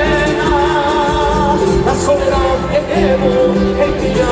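Andean folk band playing live over a stadium sound system: the opening of a song, a wavering lead melody over the full band.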